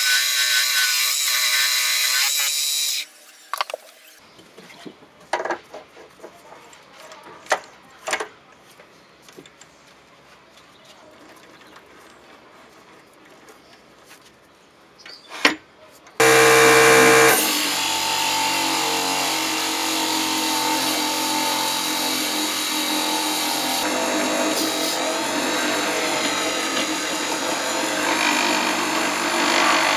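Wood lathe spinning a blank while a gouge cuts it, a loud hissing cut that stops about three seconds in. A quieter stretch follows with a few sharp clicks and knocks. From about sixteen seconds the lathe runs again while a drill bit held in the tailstock chuck bores into the end of the spinning wood, a steady machine noise.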